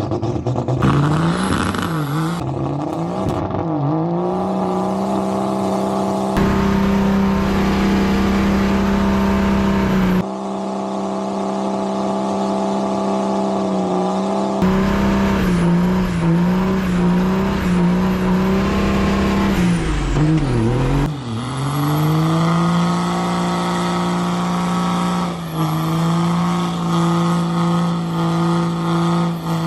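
Car engine revved hard and held at high revs, as in a tyre-shredding burnout. The engine note stays steady for long stretches, then drops and climbs back up several times.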